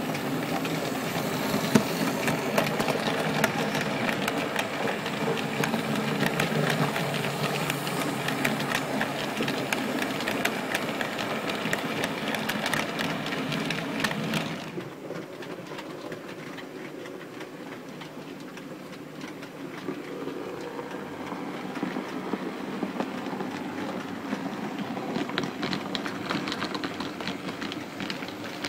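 OO-gauge model train (Bachmann SECR C class locomotive hauling coaches) running on model track: a steady motor whir with rapid clicking of wheels over rail joints and points. It is loud while the train passes close, drops suddenly about halfway through, then builds again near the end as the train approaches.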